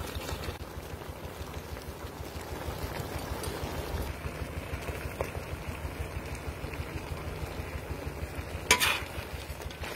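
Crabs bubbling in sauce in a large metal wok over a fire, over a steady low rumble. One sharp metal clank near the end.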